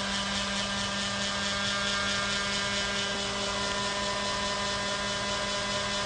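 Electric palm sander running steadily, a constant even-pitched hum, heard from about 45 feet away.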